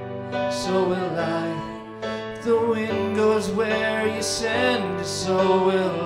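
A woman and a man singing a slow worship song together, accompanied by sustained chords on a Roland FP-4 digital piano.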